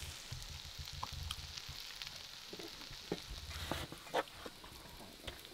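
Knife slicing through grilled steak on a cutting board: faint, scattered clicks and crackles of the blade, over a faint hiss.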